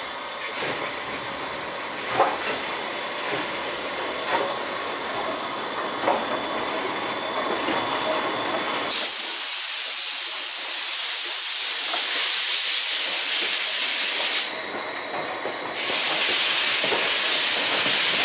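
JNR Class D51 steam locomotive D51 200 running light. For the first half there is a steady hiss with a few sharp knocks about two seconds apart. About halfway in it gives way to a loud rushing hiss of steam venting from low at the front, where the cylinder drain cocks are, which dips briefly a few seconds before the end and then comes back.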